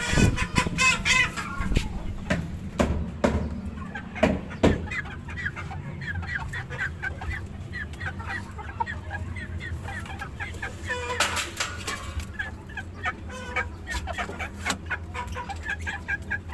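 Young Aseel chickens clucking and chirping with many short, repeated calls, over a steady low hum. Several sharp knocks come in the first few seconds, and there is a louder burst about eleven seconds in.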